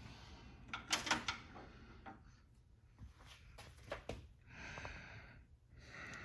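Faint handling noise: a quick cluster of clicks and knocks about a second in, another click later, and two short breathy hisses near the end.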